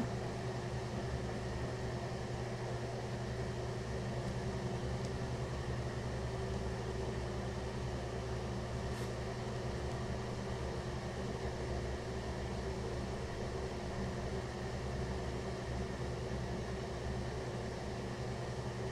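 Steady machine hum with a faint hiss and a few held low tones, unchanging throughout: background drone of a running appliance such as a fan.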